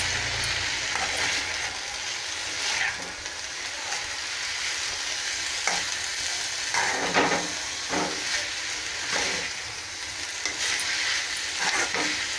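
A spoon stirring and scraping through moringa leaf palya and grated coconut in a stainless steel kadai, with repeated short knocks of the spoon against the pan. Under it the food sizzles steadily.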